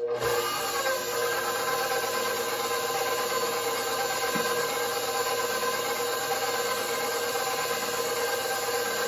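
Electric stand mixer switching on and running at a steady speed, its wire whisk beating egg and sugar in a stainless steel bowl; a steady motor whine.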